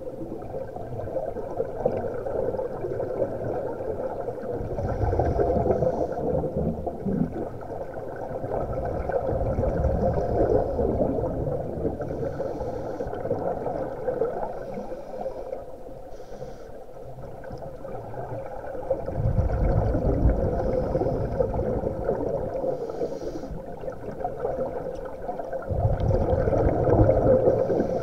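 Scuba regulator breathing underwater: a short hiss on each inhale and a long bubbling rumble on each exhale, repeating every six or seven seconds over a steady low hum.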